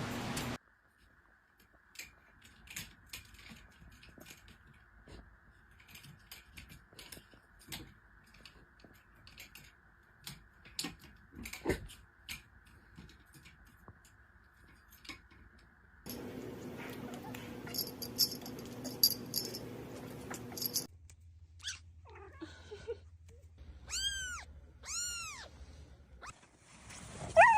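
A domestic cat meowing, with two drawn-out rising-and-falling meows near the end, among scattered small clicks and knocks from other short clips.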